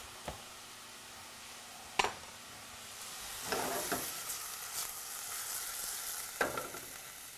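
A knife knocks once sharply on a plastic cutting board, then a saucepan of shallots, garlic and frozen blueberries is handled on a gas burner, its contents sizzling with a few scrapes and clanks of the pan.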